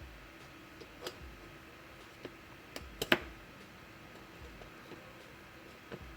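Sharp, irregular knocks from the small hammer head of a multitool striking: single strikes about one and two seconds in, a quick cluster of three around three seconds in (the loudest), and another just before the end.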